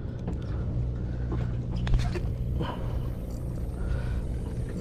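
Boat engine running steadily, a low hum, with a few sharp clicks just before two seconds in.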